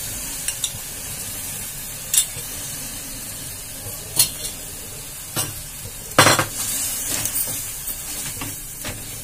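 Corn, capsicum and tomato sizzling in a metal frying pan just after a little water has been added, while a wooden spatula stirs and scrapes through them. Several sharp knocks of the spatula or spoon against the pan ring out, the loudest about six seconds in.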